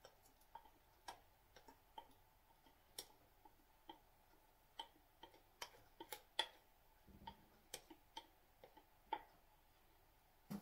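Faint, irregular clicks of a wire whisk tapping and scraping against a glass mixing bowl while cake batter is worked out into a cake tin, with a dull knock about seven seconds in.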